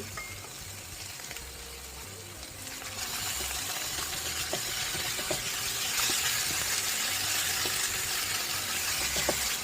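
Ground chicken frying in hot oil with garlic and chili, an even sizzle that grows louder about three seconds in, with occasional light spatula scrapes as it is stirred.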